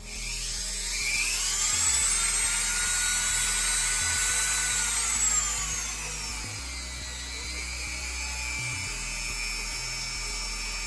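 Dremel 200 rotary tool's motor spinning up to a high whine within about two seconds and running steadily, then slowing to a lower steady pitch about six seconds in, its speed turned down through the dimmer switch wired in as a speed control, to about 15,000 rpm.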